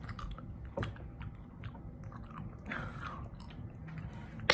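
Jelly beans being chewed with the mouth near the microphone: soft wet smacks and small clicks, with a sharp click near the end.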